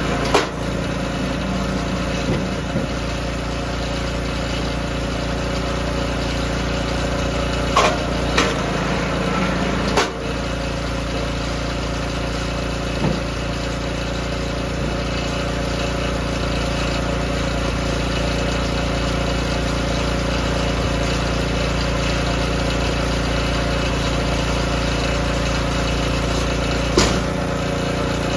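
DR K28 Pro log splitter's small gas engine running steadily, with a few sharp cracks and knocks as the ram drives through hardwood: one just after the start, a few about a third of the way in, and one near the end.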